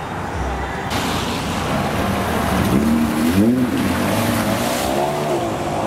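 A car engine accelerating hard, its revs rising and dropping several times, over road traffic noise.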